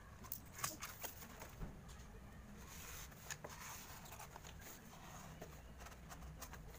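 Faint, scattered clicks and scratches of a knife cutting packing styrofoam and the foam sheet being handled, with the sharpest ticks in the first two seconds.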